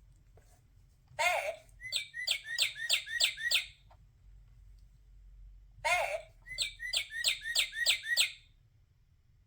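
Recorded bird song played from a children's sound book's electronic speaker, twice: each time a short lower call followed by a quick run of about seven descending chirps.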